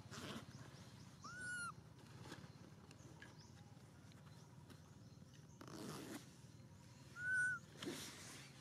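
Two short, high, arched coo calls from a macaque, about six seconds apart, the second louder, over a faint background hiss.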